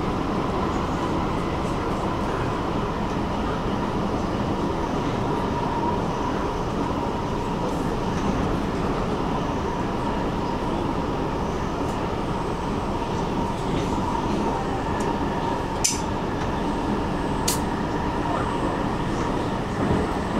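Stockholm metro train running between stations, heard from inside the car: a steady rumble with a faint constant whine. A few sharp clicks come near the end.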